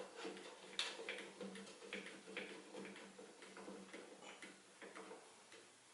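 A clamp being tightened to hold a deck bumper against a mower deck: a run of light, irregular clicks, about two to three a second, over a faint steady hum.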